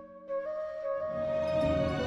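Instrumental intro music with long held notes, briefly dropping at the start and then growing fuller as lower notes join about a second in.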